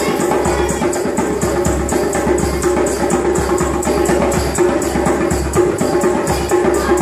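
Live busker percussion, a hand drum played in a quick steady rhythm, over accompanying music with held tones.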